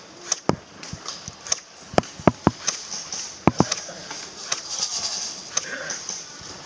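Irregular sharp snaps and clicks, a dozen or more scattered through a few seconds: airsoft guns firing and BBs striking around the field.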